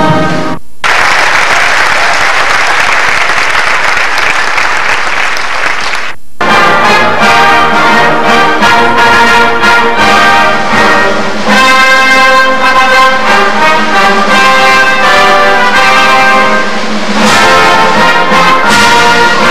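Audience applause fills a large hall for about five seconds. After a brief drop-out, a concert band plays, brass loudest, in sustained chords.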